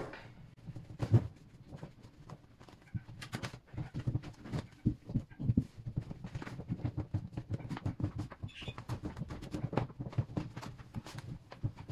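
Cloth rubbed firmly over freshly laid vinyl wrap by hand, smoothing it down into the grooves: a busy, irregular run of short rubbing scrapes and soft knocks, several a second.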